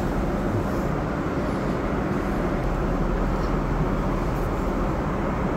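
Steady cabin noise of an airliner in flight: an even rush with no breaks or changes.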